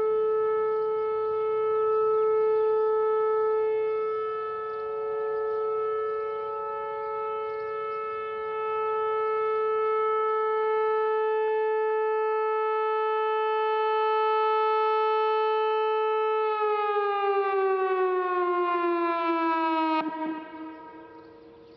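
Whelen WPS-4004 electronic outdoor warning siren sounding a steady alert tone, which slides down in pitch near the end and then cuts off: the close of a three-minute test.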